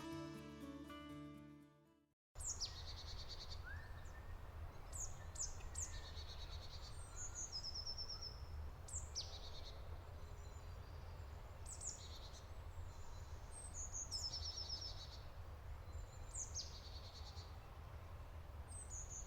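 A songbird singing the same short phrase over and over, every two to three seconds: a high note sweeping downward, then a quick trill. A steady low rumble of outdoor ambience lies under it, and background music fades out at the very start.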